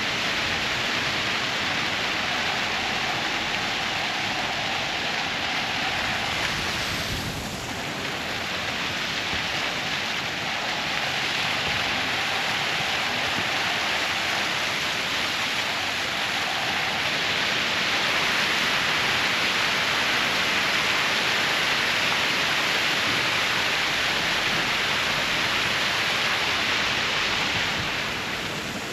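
Fountain water splashing steadily, a constant hiss of spray and falling water.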